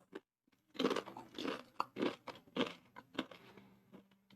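A person biting and chewing crunchy corn nacho chips: a run of irregular crunches starting about a second in, growing fainter near the end.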